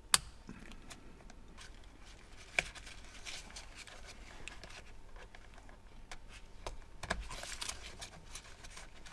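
Small plastic clicks and rustling as the airbag wiring connectors are handled and connected: a sharp click just after the start, another about two and a half seconds in, and a stretch of rustling handling near the end.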